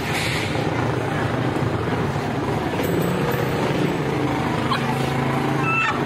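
Jeepney engine idling, a steady low drone, with a short, high falling cry near the end.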